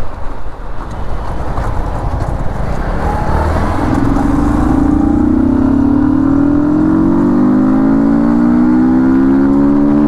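Yamaha MT-15's 155 cc single-cylinder engine at full throttle through an aftermarket Akrapovič silencer, its note climbing steadily as the bike accelerates hard in one gear. For the first few seconds wind rush and road noise cover the engine, then the rising engine tone takes over from about four seconds in.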